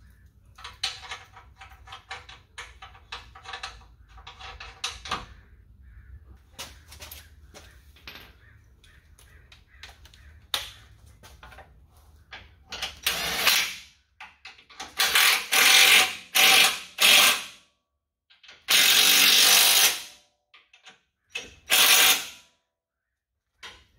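Light metallic clicks and taps of bolts being handled and threaded by hand, then, from about halfway, seven short bursts of a cordless power tool with a socket running in the front sway bar's mounting bolts; the longest burst lasts about a second and a half.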